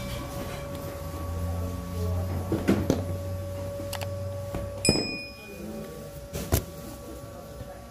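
Bakery work sounds: a steady machine hum, with a deeper hum that stops about five seconds in, and four sharp knocks, the loudest about five seconds in.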